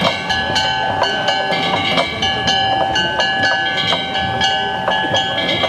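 Japanese festival music (matsuri-bayashi): a flute plays held notes that change every second or so, over a steady beat of sharp struck percussion, about two strikes a second.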